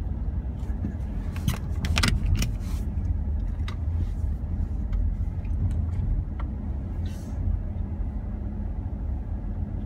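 Car cabin noise while driving: a steady low road and engine rumble, with a short cluster of sharp clicks or rattles about two seconds in.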